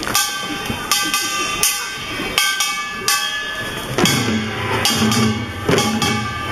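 A pungmul percussion band (Korean farmers' music) playing. There are sharp drum and gong strikes about one and a half times a second, each leaving a metallic ringing, and a deeper sustained sound joins about four seconds in.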